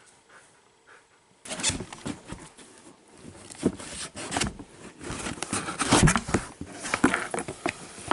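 A husky chewing and tearing at a cardboard box: irregular crackling, scraping and ripping of cardboard with many sharp clicks, starting suddenly about a second and a half in after near quiet.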